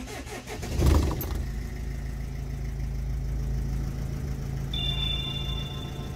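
A diesel vehicle engine cranking and catching about a second in, then idling steadily. A short high electronic beep sounds for about a second near the end.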